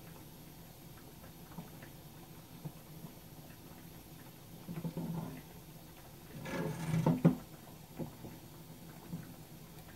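Quiet kitchen handling noises: scattered light taps, a short rustle about five seconds in, and a louder clatter at the stove a little before the end that finishes in a sharp knock.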